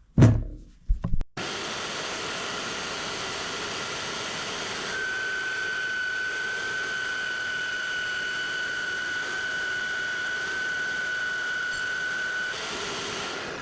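A few knocks, then a power saw runs steadily as it cuts a small corner off a piece of quarter-inch angle plate. A high steady whine joins about five seconds in, and the sound cuts off abruptly near the end.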